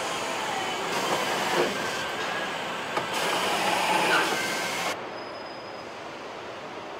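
Truck assembly-plant noise: a dense clatter of line machinery with short squeals and whines. It drops abruptly about five seconds in to a quieter steady hiss.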